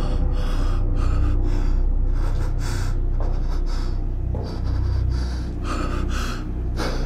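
A man gasping and panting in quick, ragged breaths, about two or three a second, as if in shock or distress, over a low steady rumble.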